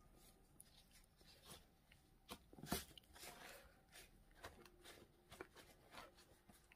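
Faint rustling and crinkling of a paper towel as gloved hands press and fold it around wet shredded red cabbage to blot it dry, with a few soft clicks.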